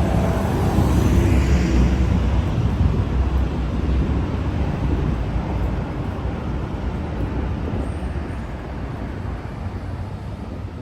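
Street traffic: a motor vehicle's engine rumbling close by, loudest in the first couple of seconds and then slowly fading as it moves off.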